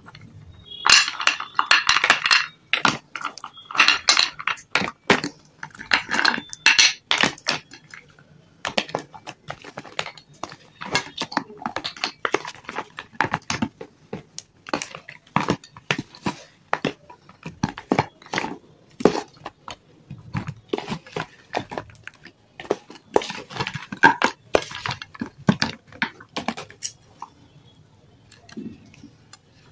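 A metal spoon clinking and scraping in a plastic tub as half-roasted nakhumad lumps are dropped in and stirred through a thick paste: a quick run of small clicks, clacks and scrapes, busiest at the start and again near the end.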